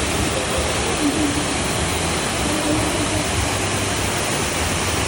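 Rushing water of a waterfall: a loud, steady wash of noise, with faint voices underneath.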